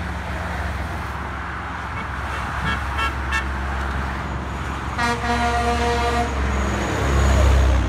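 Kenworth W900 semi truck's horn sounding one steady blast of about a second, a single pitch with strong overtones, about five seconds in. The truck then rumbles loudly as it passes close by, over steady highway traffic noise.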